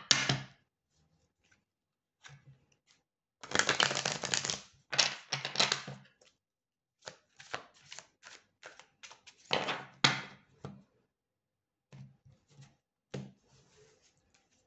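A deck of tarot cards being shuffled by hand: two runs of rapid card clatter, one starting about three and a half seconds in and a shorter one near ten seconds, with scattered light taps and clicks of cards in between.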